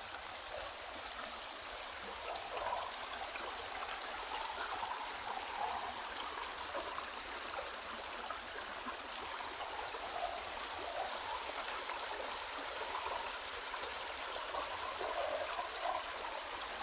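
Small mountain creek flowing over rocks: a steady rush of water with light gurgling.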